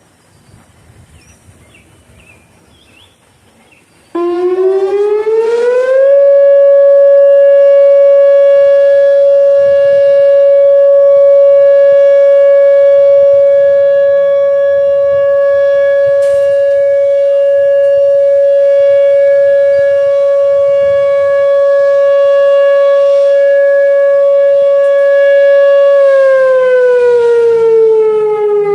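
Whelen WPS-2805 electronic outdoor warning siren sounding its short alert tone: after a few seconds of faint wind noise it switches on suddenly about four seconds in, rises in pitch over a couple of seconds to one loud steady tone, holds it for about twenty seconds, then begins to wind down in pitch near the end.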